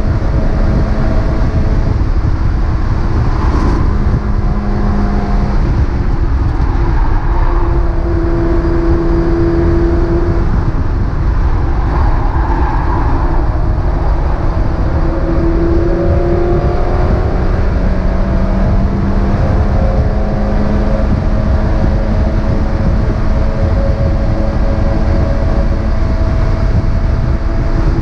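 Mazda MX-5 race car's engine running hard at racing speed, its note rising and falling as it accelerates, brakes and changes gear, over a heavy low rumble of wind and road noise.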